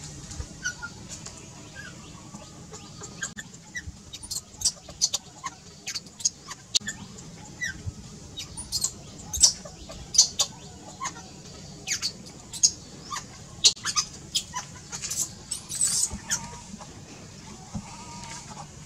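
Many short, high chirps and squeaks from small animals, scattered irregularly, over a steady low background hum.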